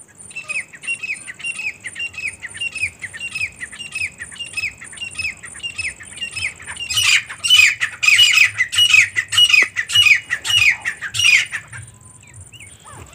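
Grey francolins calling: a long run of short, falling notes repeated about three times a second, turning much louder and denser about seven seconds in as a second bird joins, and stopping about a second before the end.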